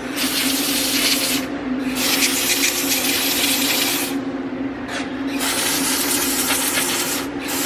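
Aerosol can of WD-40 Specialist Electrical Contact Cleaner spraying through its straw in three hissing bursts of one to two seconds each, over a steady low hum.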